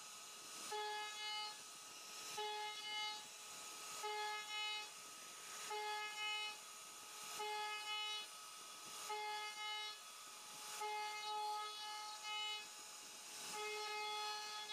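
CNC router spindle carving wood: a high, pitched whine over a steady hiss, swelling and fading in regular pulses about every second and a half to two seconds as the bit sweeps through the cut.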